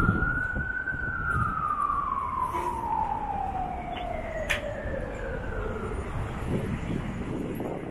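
Emergency vehicle siren wailing: one rise in pitch, then a long, slow fall that dies away by about six seconds in. A low street rumble runs beneath, with a sharp click about four and a half seconds in.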